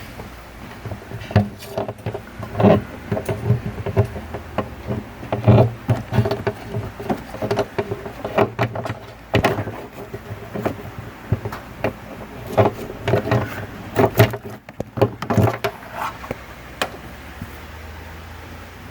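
Irregular rustling, clicks and knocks of hands working the vehicle's floor carpet and center-console trim, over a steady low hum.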